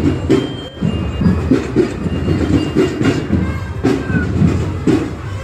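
A fairground ride clattering along its track in an uneven run of knocks and rattles.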